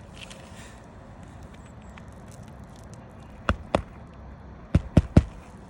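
Steady outdoor background noise, then a run of sharp knocks on the roof: two about three and a half seconds in and three more quickly together near the end.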